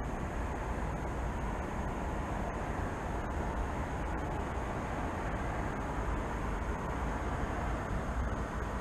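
Steady outdoor city ambience: a continuous low rumble of distant traffic, with a faint steady high tone above it.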